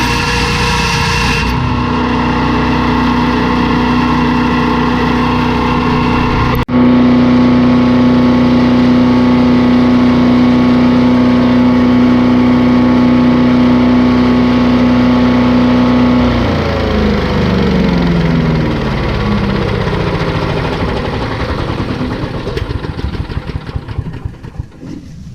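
The small gasoline engine of a LANDWORKS 7 HP wood chipper running steadily at full speed; about two-thirds of the way in it is shut off and winds down, its pitch falling as it slows and fades to a stop near the end.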